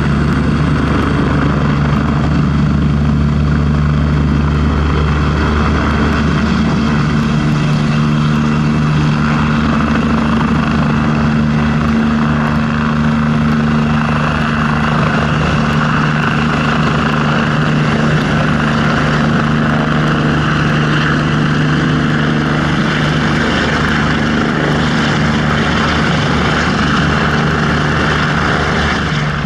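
Kawasaki BK117 twin-turbine helicopter running close by as it hover-taxis low across the airfield, a loud steady engine-and-rotor sound with held low tones. The low end eases about a quarter of the way in, leaving a fine rotor chop.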